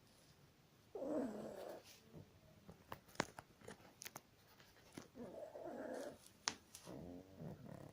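A pug snoring: three rattling snores, one about a second in and two close together near the end. A few faint sharp clicks fall between them.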